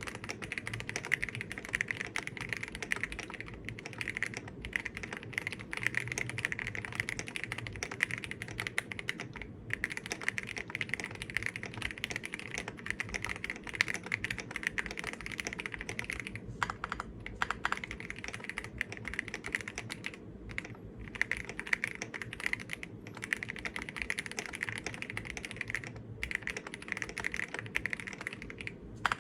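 Steady fast typing on an M1W mechanical keyboard: a dense run of key clacks, broken by a few short pauses.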